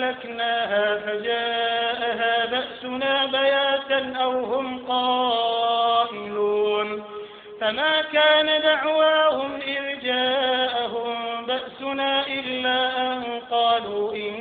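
A male imam reciting the Quran aloud in prayer, in a slow melodic chant with long held notes that glide between pitches, pausing briefly about halfway through.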